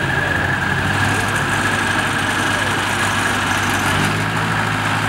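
Vintage Ford farm tractor's four-cylinder engine running steadily at low speed as it drives past, its low note changing slightly near the end.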